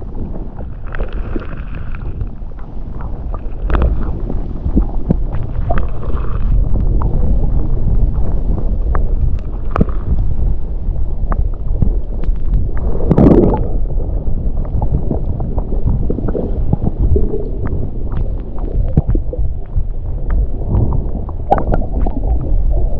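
Water splashing and gurgling around a kayak as it is paddled, under steady wind rumble on the microphone. Short knocks and splashes come and go, the loudest about halfway through.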